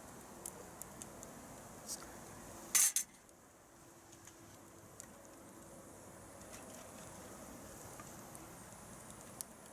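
Metal camp cookware and utensils clinking: a few light clicks, then a sharp double clink a little under three seconds in, and a few more faint ticks afterwards.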